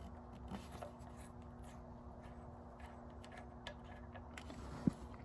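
Faint clicks and scraping of hand tools working on the BMW M52 engine's VANOS unit as its 8 mm hex caps are loosened, with one sharper click near the end over a low steady hum.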